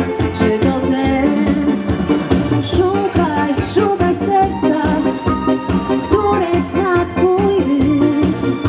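A woman singing a pop song into a microphone over electronic keyboard accompaniment with a steady beat, amplified through a PA.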